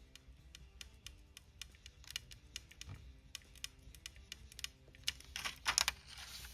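Irregular light clicks and taps of small handwork on a tabletop, with a short scraping rustle near the end, over faint background music.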